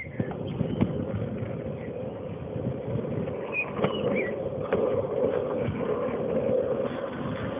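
Longboard wheels rolling down an asphalt road: a steady rough rumble with a hum that grows stronger about halfway through.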